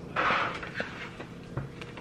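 A child's fork scraping across a plate in one short rush, then a few light clicks and a soft knock near the end.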